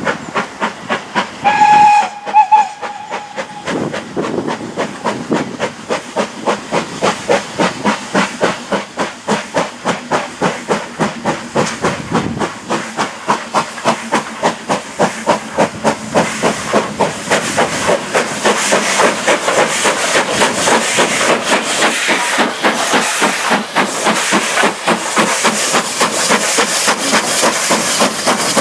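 Steam locomotive whistle giving two short blasts about two seconds in. Then the locomotive's exhaust beats as it works a passenger train, a steady chuffing about three beats a second that grows louder as it approaches and passes, with hissing steam.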